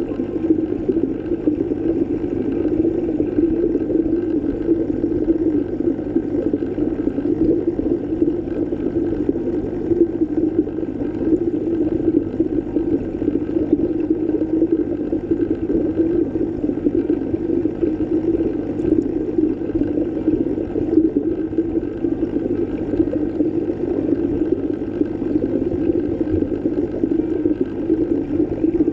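Underwater ambience: a steady, muffled rush of water, heavy in the low middle, with no clear events.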